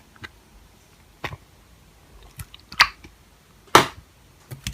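Slime being squeezed and poked by hand, giving a handful of separate wet clicks and pops, the loudest about three and four seconds in.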